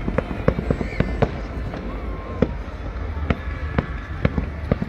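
Aerial fireworks going off: an irregular run of sharp bangs and cracks, two or three a second, over a low rumble.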